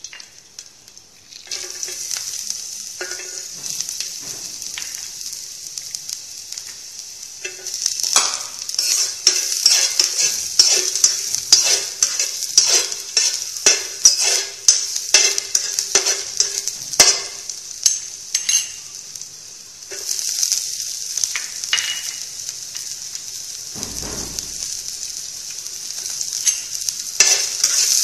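Chopped garlic, ginger and red chili frying in hot mustard oil in a pan, sizzling with a steady high hiss from about a second and a half in. About 8 s in it turns to dense sharp crackling and spattering, eases off after about 19 s, and picks up again from about 20 s.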